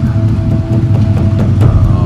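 CFMoto CForce ATV engine running steadily at low speed as the quad crawls over rocks, with a few light knocks and clatter.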